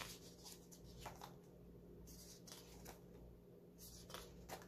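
Faint rustles of paper planner pages being turned one after another in a ring binder, several light flicks in a few seconds.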